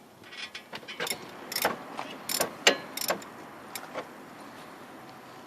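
Wrench loosening a 14 mm brake caliper bolt: a string of short, irregular metal clicks and clinks through the first four seconds, fewer near the end.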